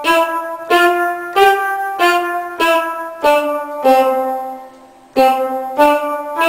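Keyboard playing the five-note C pentachord (C D E F G) as single notes, about one every 0.6 s: it finishes climbing to G, steps back down to C, and holds that note. A little past halfway it starts the run again from C.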